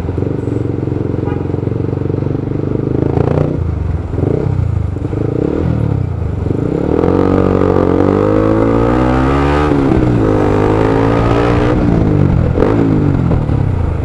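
Motorcycle engine running at low speed, then, from about seven seconds in, pulling harder and louder, its pitch rising and falling several times as the rider speeds up and eases off.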